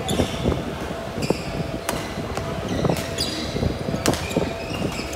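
Badminton rally: several sharp cracks of rackets striking the shuttlecock, one of them a jump smash about four seconds in, with court shoes squeaking on the floor between shots.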